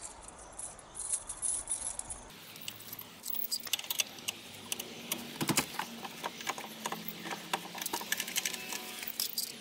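Keys jangling and metal parts clicking and rattling in quick, irregular taps as a caravan wheel lock is unlocked and taken off the wheel.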